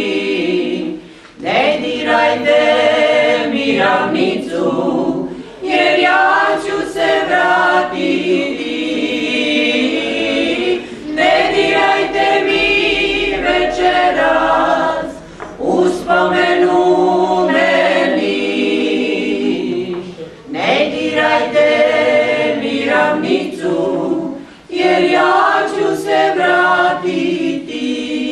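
A small group of four women singing together a cappella, in sung phrases with short pauses for breath between them.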